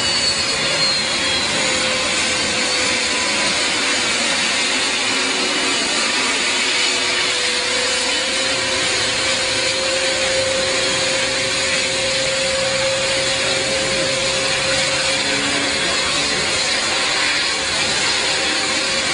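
Beriev Be-200 amphibious jet's two turbofan engines running as it taxis: a steady, loud rushing hiss with a whine held through it.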